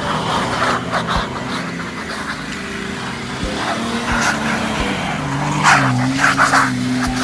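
A BMW 5 Series sedan's engine revving up and down as the car slides sideways through snow with its rear wheels spinning, with rushes of noise from the tyres throwing up snow, loudest a little after halfway.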